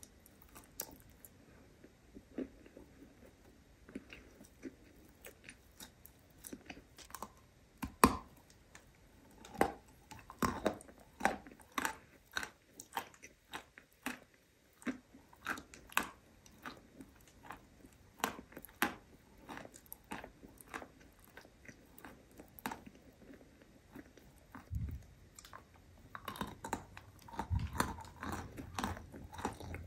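Crunchy biting and chewing of a crumbly white piece of berry mochi, with the microphone held right at the lips: sharp crunches and crackles, the loudest snap about eight seconds in, and denser chewing near the end.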